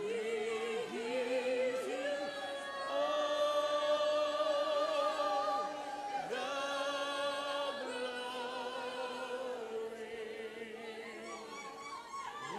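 Worship singing: a voice, or voices together, holding long notes with vibrato, each lasting a couple of seconds or more, with pitch slides between them.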